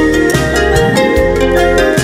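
Instrumental background music: layered pitched notes over a regular percussive beat.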